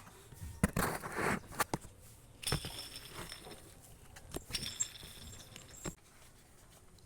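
Metal tools and parts being handled: a series of clinks, knocks and scrapes, some leaving a short metallic ring, stopping about six seconds in.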